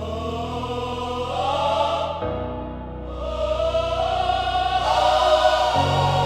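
Music: a choir singing long held notes over a deep, steady bass, the bass note changing twice.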